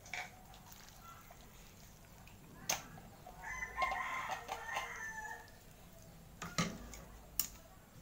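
A rooster crows once, about three and a half seconds in, for nearly two seconds. A few sharp clinks of utensils against the dishes come before and after it.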